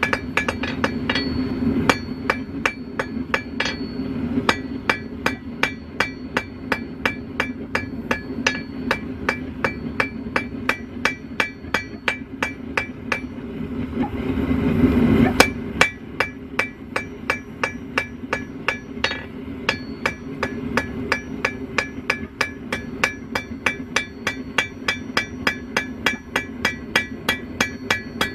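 Hand hammer striking hot steel on an anvil, about two or three ringing blows a second, over the steady roar of a propane gas forge. About halfway the blows pause briefly while a louder rushing noise swells, then the hammering resumes.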